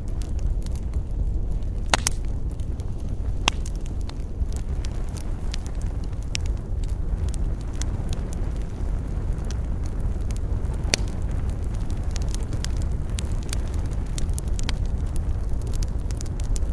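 Wood fire crackling: scattered sharp pops and snaps over a steady low rumble, with the loudest pops about two seconds in and again near eleven seconds.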